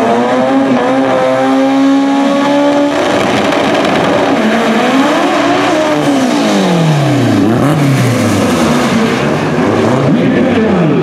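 Mitsubishi 4G63 four-cylinder drag car engine, held at a steady high rev on the starting line, then launching at full throttle down the strip. Its note climbs and drops several times as it runs through the gears.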